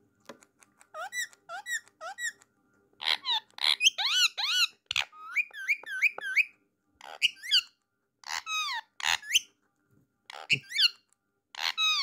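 Indian ringneck parakeet giving short, high-pitched squeaky calls: three quick ones about a second in, then bursts of rapid chirps.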